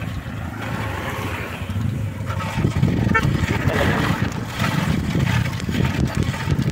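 Wind buffeting the microphone of a camera held out by someone riding a bicycle, with rumble from riding over a brick-paved road. It grows louder about two and a half seconds in.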